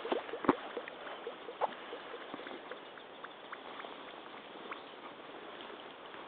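Walking in rubber crotch-high waders over wet grass: rubber squeaks, squelches and knocks of the boots, thickest in the first two seconds with the loudest about half a second in, then only a few light ticks over a steady hiss.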